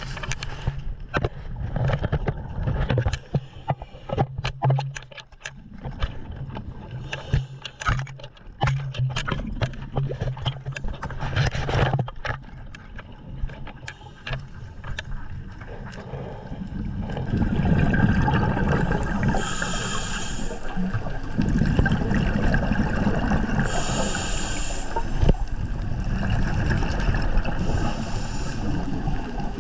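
Underwater camera audio: knocks and scrapes as the camera housing bumps against the diver's mesh catch bag and kelp, over a low hum. About halfway through, a steadier rush of water sets in, with bursts of the diver's breathing about every four seconds.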